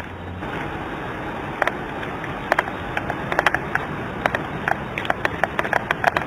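Steady outdoor rushing noise with many irregular sharp crackles and pops. The pops come thicker and louder from about a second and a half in.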